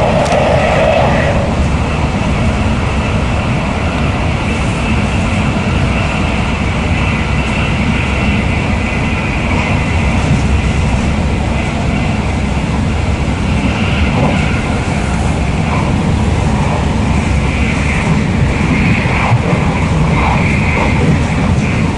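Inside a carriage of an NS ICMm electric multiple unit under way: a steady low rumble of wheels on rail with a hiss over it, and a higher band of noise that swells and fades.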